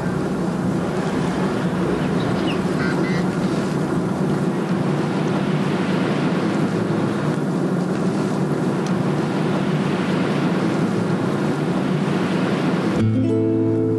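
Steady rumbling engine and road noise of a vehicle running, with a few faint high chirps about two to three seconds in. Guitar music cuts in near the end.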